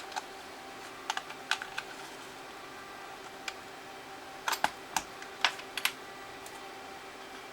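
Irregular sharp clicks and snaps as the case of a 3rd-generation iPod is pried at, the case being hard to open. They come in two clusters, about a second in and again around five seconds in.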